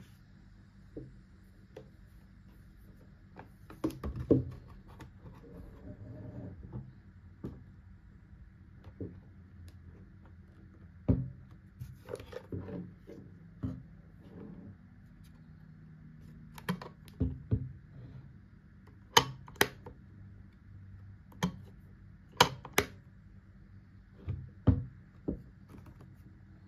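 A plastic Philips steam iron being handled and turned over in the hands on a wooden table: scattered short plastic clicks, taps and knocks, a couple of dozen in all.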